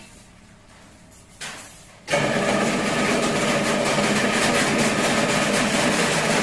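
Chain-link fence-making machine running: a loud, steady mechanical clatter with a hum that starts abruptly about two seconds in.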